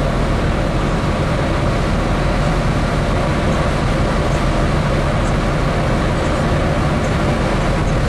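Steady rumble of a dredge ship underway: its engines running and the propeller wash churning behind the stern.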